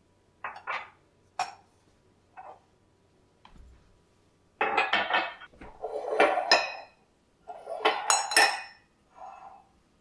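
Ceramic coffee mugs clinking against each other and being set down on a hard countertop: a few single knocks at first, then quick runs of clatter from about four and a half seconds in.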